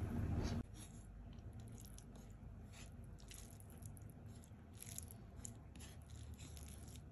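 Fingers mixing cooked rice with fried egg and dal on a plate: faint soft squishing and light crackles. A louder low rumbling noise cuts off abruptly about half a second in.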